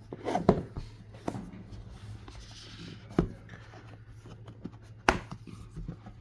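Hands opening and handling a cardboard model box and its packaging: soft rustling broken by a few sharp clicks and knocks, over a steady low room hum.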